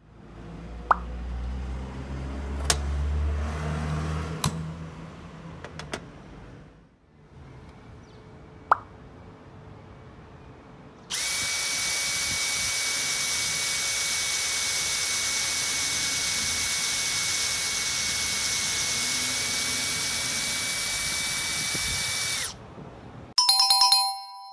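Electric drill in a drill guide running at steady speed for about eleven seconds, boring into a clamped wooden block with a constant high whine, then cutting off abruptly. It is preceded by several sharp clicks and knocks over a low rumble, and a short ringing chime sounds near the end.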